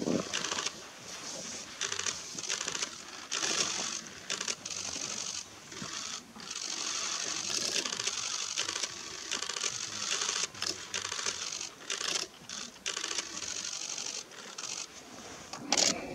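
Snow crunching and rustling in irregular bursts, each from a fraction of a second to about two seconds long, with small clicks between them.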